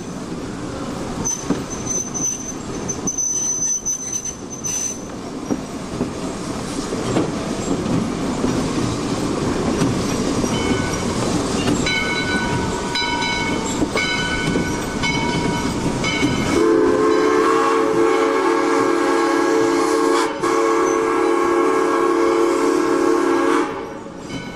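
Narrow-gauge log train rolling on the rails with wheel clatter, its wheel flanges squealing on and off on a curve. About two-thirds of the way in, the Shay steam locomotive's whistle blows one long blast of about seven seconds, sounding several pitches at once with a brief break partway through.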